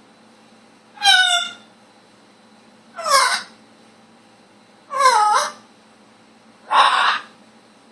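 Blue-and-gold macaw calling four times, about every two seconds. Each call is short and bends in pitch.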